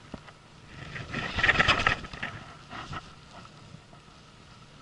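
Baitcasting reel working against a large red sea bream: a burst of rapid clicking about a second and a half in, lasting about a second, then quieter.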